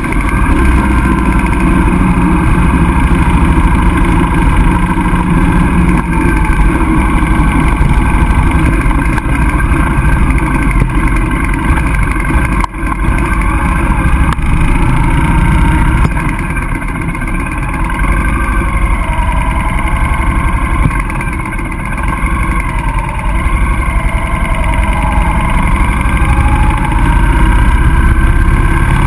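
Motorcycle engine running steadily at road speed, with wind rushing past the bike-mounted microphone; it eases off slightly for a few seconds in the second half.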